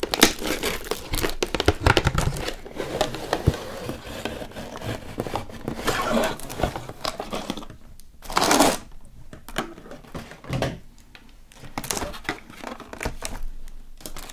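Cardboard slime-kit box being opened and its white inner tray handled: packaging rustling and crinkling, with many sharp taps and clicks from long acrylic nails on the cardboard and a louder half-second scrape about eight seconds in.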